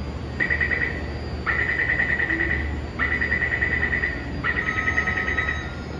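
Metro door-closing warning beeping: a rapid, high electronic pulsing in four runs, a short one and then three longer ones of about a second and a half each, over a steady low station hum. It signals that the doors are about to close before the train departs.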